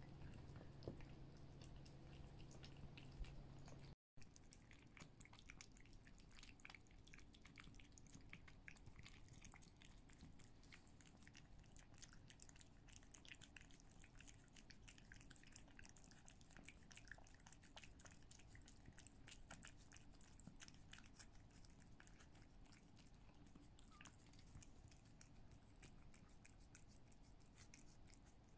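Two cats licking a churu paste treat from a handheld feeder: faint, rapid, irregular wet licking and smacking clicks.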